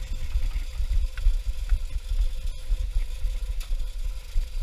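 Uneven low rumble and buffeting in the cab of the 15-inch-gauge steam locomotive Green Goddess, with a faint steady tone and a few light ticks over it.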